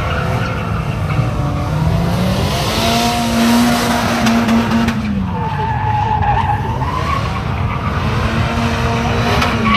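Polaris Slingshot three-wheeler drifting in circles: its 2.4-litre four-cylinder engine held at high revs, its pitch rising and falling several times as the throttle is worked, over the hiss and skid of the spinning rear tyre. A wavering tyre squeal stands out about halfway through.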